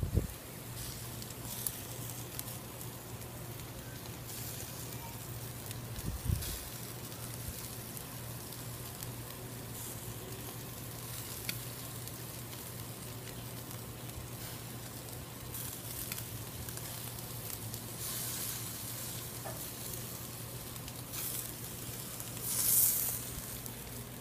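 Goat chops sizzling in a wire grill basket over hot charcoal: a steady hiss with short spells of louder spitting and hissing, the loudest near the end. A low thump comes about six seconds in.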